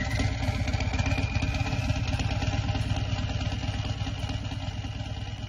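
Motorcycle engine idling just after starting, slowly fading.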